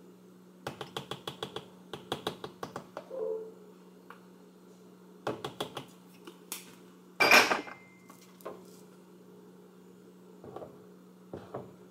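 Plastic measuring spoon tapped quickly and repeatedly against the rim of a plastic container, in runs of sharp clicks, knocking sticky corn syrup off the spoon; about seven seconds in comes one louder plastic clatter, then a few single knocks. A steady low hum runs underneath.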